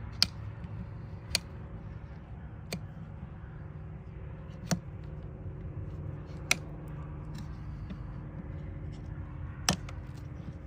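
Hoof trimming: about six sharp snaps at irregular intervals, of the kind hoof nippers make cutting through hoof wall, over a steady low hum.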